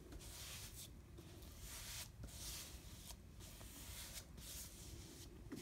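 Paintbrush swishing wet mahogany wood stain across a bare pine board, faint scratchy bristle strokes about once a second.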